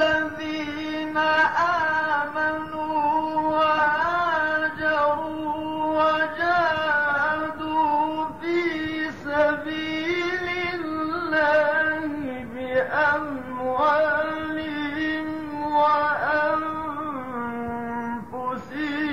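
A male Quran reciter chanting a verse in the melodic mujawwad (tajweed) style: one voice holding long, ornamented notes with winding runs up and down, settling on a lower held note near the end.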